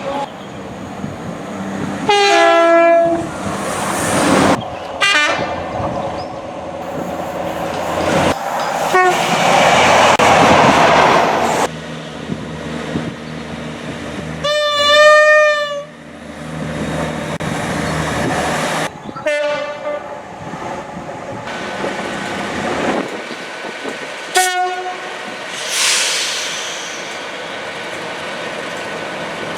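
British passenger trains sounding their horns in a run of short, abruptly cut clips: about six horn blasts, one early on stepping from a high note to a lower one and the loudest, about halfway through, wavering in pitch. Between blasts there is the rushing noise of trains passing on the rails.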